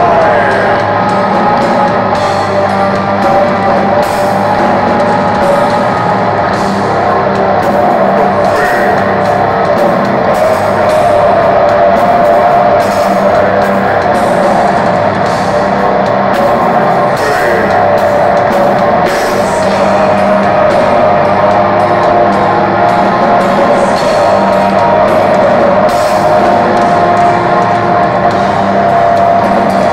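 Black metal band playing live: distorted electric guitars, bass and drums, loud and unbroken, with frequent cymbal and drum strikes.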